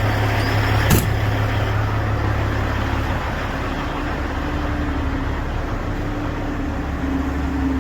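Grain truck's diesel engine idling steadily, with a single knock about a second in.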